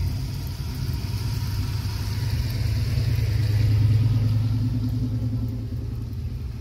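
A vehicle engine running nearby with a low, steady rumble that swells to its loudest about four seconds in and then eases off.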